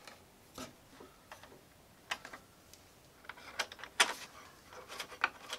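Scattered light clicks and taps of small metal fittings and an Allen key being handled as a metal crossmember is screwed onto a model airplane's fuselage, the sharpest click about four seconds in.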